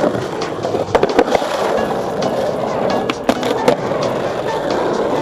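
Skateboard wheels rolling on rough asphalt with a steady rumble, and sharp clacks of the board striking the ground, once at the start, twice about a second in, and twice again a little after three seconds.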